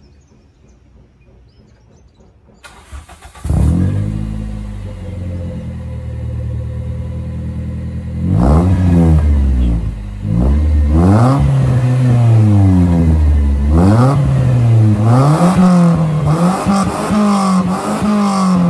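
Toyota Marino engine cranked by the starter and catching about three seconds in, idling, then revved again and again through a Beat silencer exhaust, its pitch rising and falling, with quicker blips near the end. Sharp crackles come from the exhaust as the revs drop, from its anti-lag setup.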